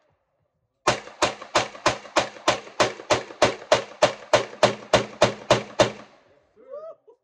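CZ Scorpion pistol-calibre carbine firing a rapid string of about seventeen semi-automatic shots, roughly three a second, each with a short echo tail. The string starts about a second in and stops about six seconds in.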